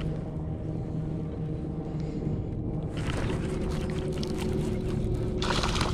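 Steady hum of the kayak's bow-mounted electric trolling motor. About three seconds in, a hissing rush with fine crackle joins it and grows louder near the end, while a hooked bass is reeled in.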